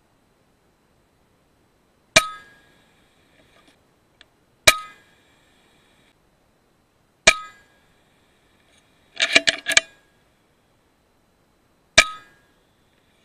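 Four shots from an FX Impact M3 .22 PCP air rifle, each a sharp crack followed by a short metallic ring, picked up through the rifle-mounted digital scope. A quick run of clicks comes between the third and fourth shots.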